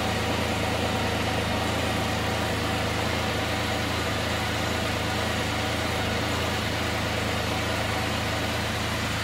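Can-Am Spyder RT three-wheeled motorcycle engine idling steadily.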